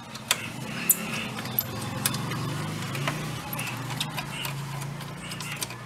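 Steel open-end spanner clicking and clinking against the nut of a car battery's hold-down clamp as it is tightened, a series of light metallic clicks. A low steady hum sits underneath through the middle.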